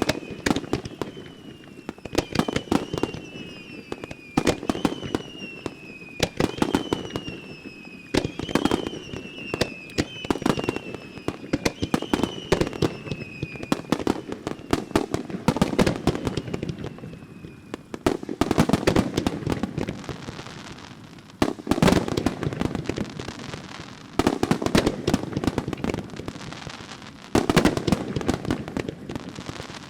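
Starmine fireworks display: rapid bursts of shell explosions with crackling, in surges of dense bangs. Through the first half, a high whistle repeats about every two seconds, each one falling slightly in pitch.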